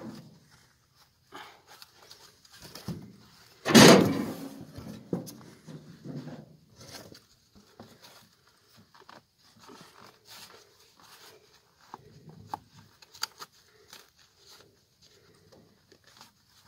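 Handling noises while a calf's splinted leg is padded and wrapped: scattered rustling and small clicks, with one loud scraping rustle about four seconds in.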